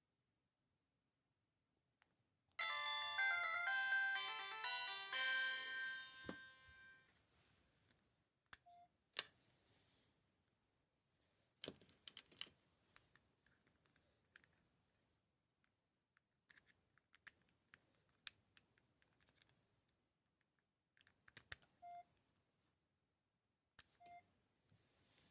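Unbranded smartwatch playing a short electronic battery-status jingle of several stepped chime notes, starting about two and a half seconds in and fading out a few seconds later. Scattered light clicks and taps follow, with a couple of faint short beeps.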